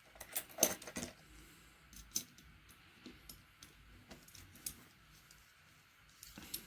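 Small clicks and taps of a die-cast Hot Wheels car and its small parts being handled and fitted together, several in quick succession in the first second, then scattered single clicks, with a few more near the end.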